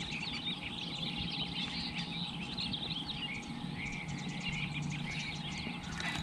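Many small birds chirping and calling at once, a dense chatter of short overlapping chirps.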